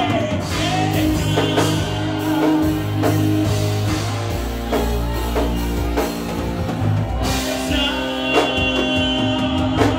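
Worship band music with a drum kit, guitar and bass, and a sung vocal line over it.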